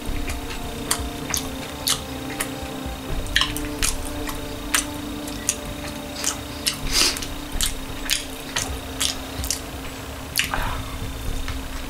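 A person chewing a mouthful of burger: irregular mouth smacks and clicks, one or two a second, over a steady low hum.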